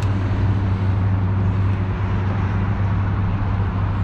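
Steady road traffic on the highway bridges: a continuous low hum under a broad rush of tyre and engine noise.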